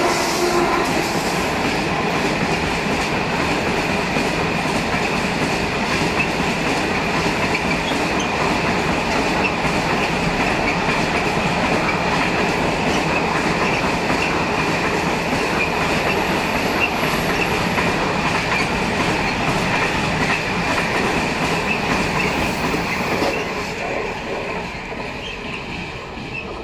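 Long container freight train passing at speed: the wagons' wheels run on the rails with a steady high-pitched ring. The noise holds steady, then fades over the last few seconds as the train's tail draws away.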